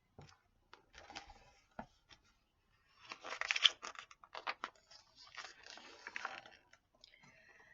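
Rustling and crinkling handling noise with scattered light clicks, loudest in two spells: about three to four seconds in, and again around five to six seconds.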